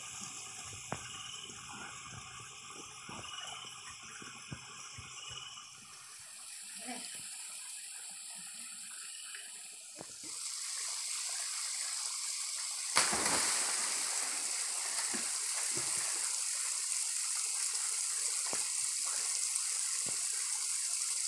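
Small waterfall pouring into a rock pool with a steady rush that grows louder about halfway through. A sharp splash comes a little after that, as a swimmer goes into the pool.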